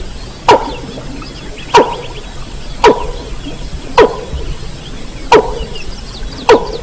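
Recorded call of a rail (burung mandar) played as a hunting lure: a sharp call that falls quickly in pitch, repeated six times at about one a second, over faint higher chattering.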